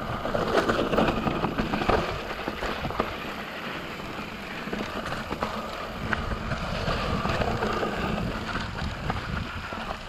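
Mountain bike descending a dirt singletrack: tyres rolling over dirt and roots, with many short knocks and rattles from the bike, and wind rushing over the microphone.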